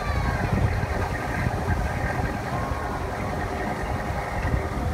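Engine of an amphibious tour bus running steadily as it moves through the water: a continuous low rumble.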